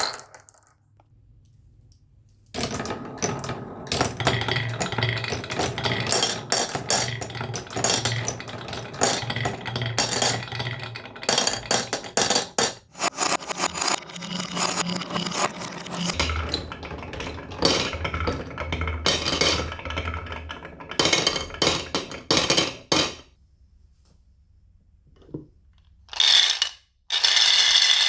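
Marbles rolling and clattering down a wooden marble run. Dense clicking and clacking rides over a steady rolling rumble for about twenty seconds, then stops. Two short bursts of clatter follow near the end.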